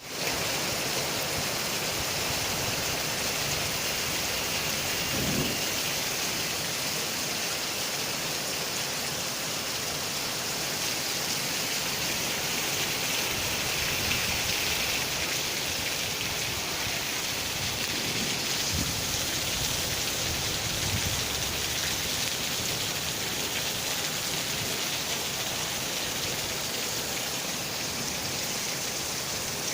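Steady rain falling in the countryside, a constant dense hiss. A few brief low thumps stand out about five seconds in and again near the twenty-second mark.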